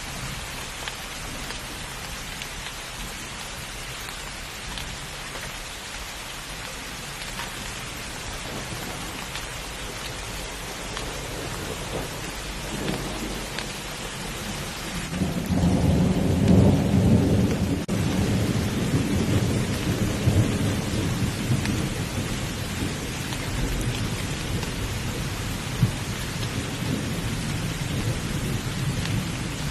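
Steady heavy rain with a long roll of thunder that builds about halfway through, rumbles loudest for a few seconds, then slowly fades under the rain.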